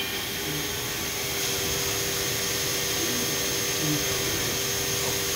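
Hurco VMX-42 vertical machining center's spindle running at a steady speed: an even machine whine with high steady tones, over the hiss of coolant streaming onto the table and vise.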